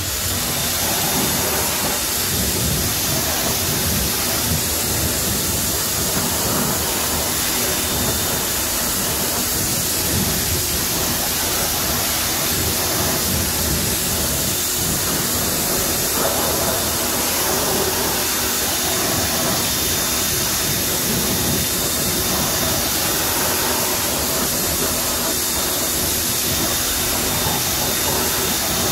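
Pressure washer jet spraying steadily onto an alloy wheel, a continuous hiss of water, rinsing off acid wheel cleaner and loosened brake dust.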